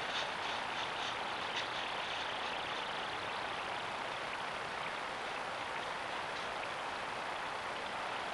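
Steady hiss of a trail camera's microphone recording an empty night scene, with a few faint light ticks in the first two seconds.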